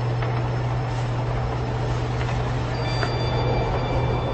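Steady low machine hum with a hiss: the motor-driven observing platform of the observatory telescope lowering. Faint high steady tones join about three seconds in.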